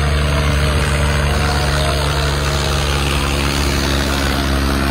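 Tractor diesel engine running steadily at a constant engine speed.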